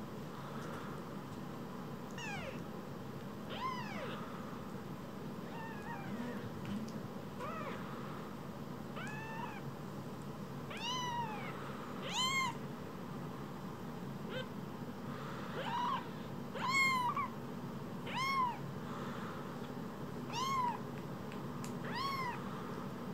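Newborn kittens mewing: about a dozen short, high, arching cries, a second or two apart, louder and more frequent in the second half.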